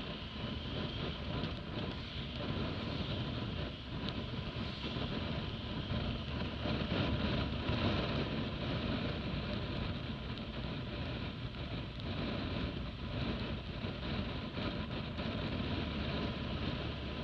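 Motorcycle riding along a wet mountain road at low speed, its engine running under steady wind noise on the onboard microphone. It grows a little louder midway as the bike speeds up.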